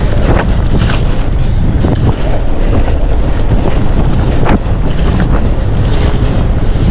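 Mountain bike riding a wet, heavily puddled trail: wind buffeting the microphone over tyres running through water and mud, with frequent sharp clicks and knocks from the bike rattling over the ground.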